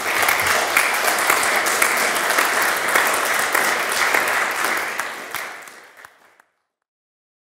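Audience applauding, a dense even clapping that tapers off and cuts out abruptly about six seconds in.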